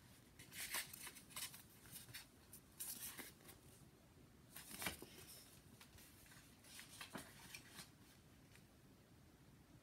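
Paperback book being handled: faint, scattered rustles and crinkles of its paper pages as the open book is turned around and back, for about eight seconds.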